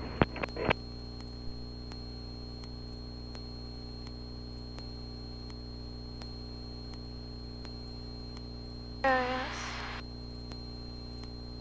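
Steady engine hum of a single-engine light aircraft in cruise, heard through the headset/intercom audio feed. A few sharp clicks come just after the start, and a brief voice-like sound about nine seconds in.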